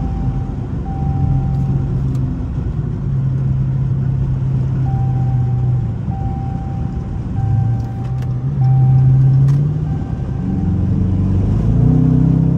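Dodge Charger R/T's 5.7-litre HEMI V8 heard from inside the cabin while cruising, its exhaust drone swelling and easing with the throttle. Near the end it climbs in pitch as the car accelerates.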